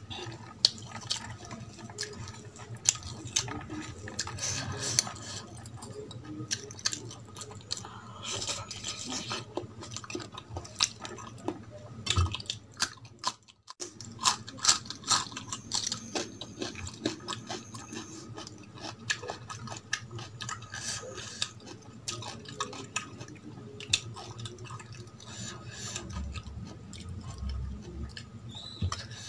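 Close-miked eating sounds: chewing of rice and curry, with many small wet clicks, and fingers mixing rice on a steel plate. Near the end a steel spoon clinks against the plate.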